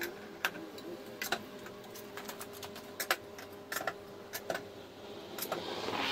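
Irregular sharp metallic clicks and clinks of tools and steel jack-stand hardware being handled under a car, over a faint steady hum.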